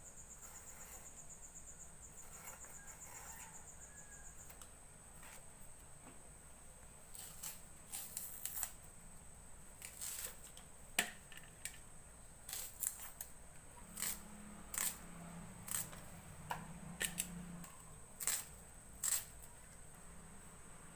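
A cricket trills for the first few seconds and then stops. After that comes a run of sharp, irregular clicks and taps, roughly one a second, with a faint low hum in the middle.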